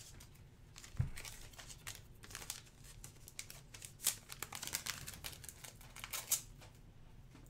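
Clear plastic trading-card holders being handled on a table: crinkling and clicking plastic, with a knock about a second in and sharper clicks around four and six seconds.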